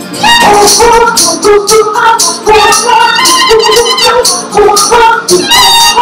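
Live band music with sung vocals over strummed acoustic guitar.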